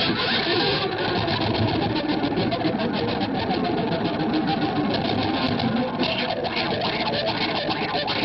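Distorted Gibson Les Paul electric guitar played with a violin bow: a dense, noisy wash of sound with a fast stutter of bow strikes on the strings between about one and six seconds in, smoother near the end.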